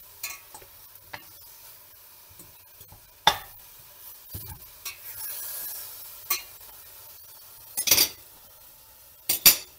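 Veal shanks sizzling softly in a stainless steel pot while the white wine they were just deglazed with cooks off. A fork is pushed against the meat and the pot, and there are sharp metal clinks about three seconds in and twice near the end as the fork is set down on a plate.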